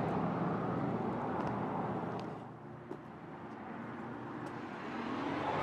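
Outdoor background noise: a steady rumbling hiss that drops lower about halfway through and then swells again, with one small click about three seconds in.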